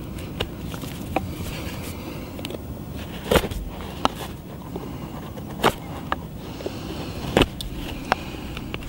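Brisa Hiking 75 bushcraft knife cutting into a hard, horn-like branch knot on a wooden stick: a series of sharp cracks and snaps as the blade bites and chips break away, about eight in all, the loudest near the middle and toward the end.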